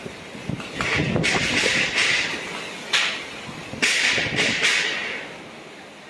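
Rough, wind-driven sea waves splashing against a concrete seawall, in several rushing bursts from about a second in until past the middle, over the rumble of strong wind.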